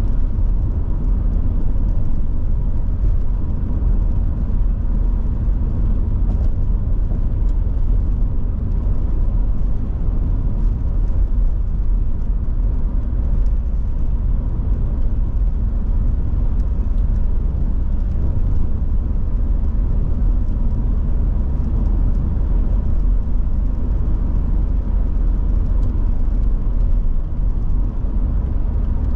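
Volvo 740 GL driving at a steady pace: a constant low rumble of engine and road noise, with no revving or change in pitch.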